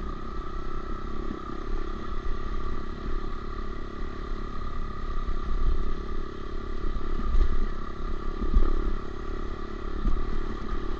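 Honda CRF125F dirt bike's single-cylinder four-stroke engine running at a steady, even throttle while riding, with rattling and occasional knocks from the rocky trail and wind rumble on the microphone.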